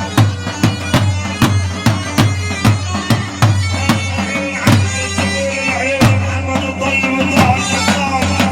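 Live choubi dance music: a fast, steady drum beat under a held drone, with a wavering melody line coming in about halfway through.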